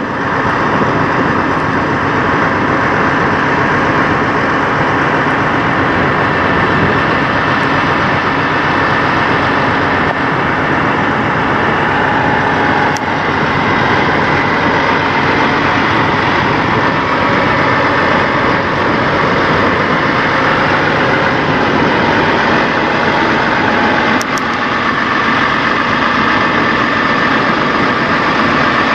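Heavy diesel semi truck idling steadily, a constant rumble with a steady whine over it.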